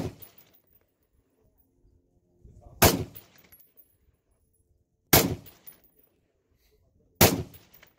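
Rifle fired from the prone position: three sharp shots about two seconds apart, each with a short echoing tail, after the fading tail of a shot at the very start.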